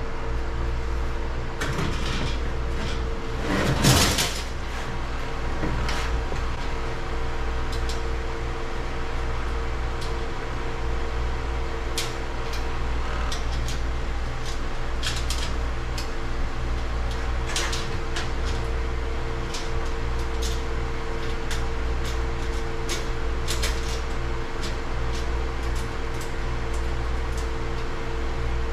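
Steady mechanical hum under scattered small metal clicks and taps as interlock hardware, nuts and bolts, is fitted to a steel electrical panel cover. A louder metal clatter comes about four seconds in.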